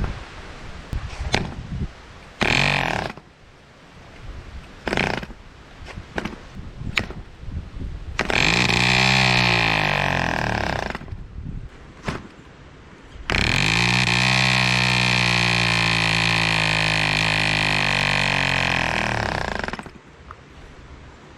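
1947 Drone 4.85 cc diesel model airplane engine with a 14 x 6 propeller being started: a few short single pops as it fires, then a run of about three seconds whose pitch dips and climbs again, then a steadier run of about six seconds that cuts off suddenly. The engine catches but will not yet keep running.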